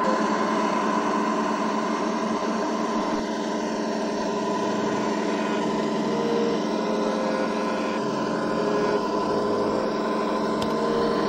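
Simulated diesel truck engine sound from an RC scale truck's sound module (Das Mikro TBS Mini), played through the model's small onboard speakers. It runs steadily, and its low note shifts slightly a few times.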